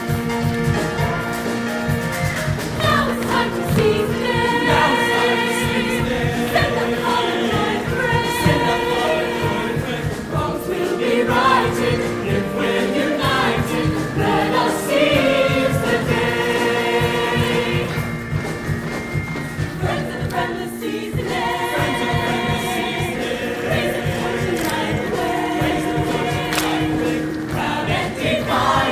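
High school show choir singing with live band accompaniment: full-voiced held chords with vibrato, over a band playing throughout.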